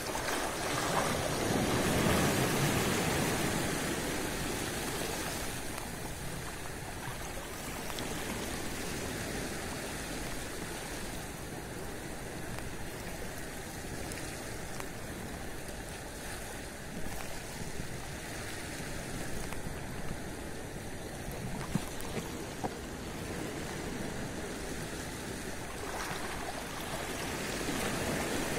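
Sea waves washing at the shore, a steady wash that swells louder about two seconds in and again near the end.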